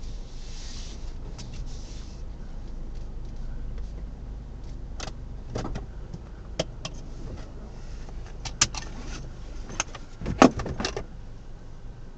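Low rumble of a car heard from inside the cabin as it comes to a stop, with a series of sharp clicks and knocks from within the car, the loudest about ten and a half seconds in.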